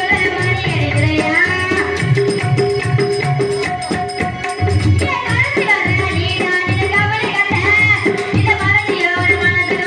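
A woman sings a Tamil folk-style stage song over a microphone, with tabla drums beating a steady rhythm under her voice.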